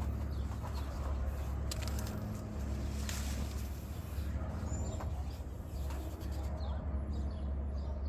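Mango leaves and twigs rustling, with a few brief crackles as the foliage is handled, over a steady low rumble; birds call in the background.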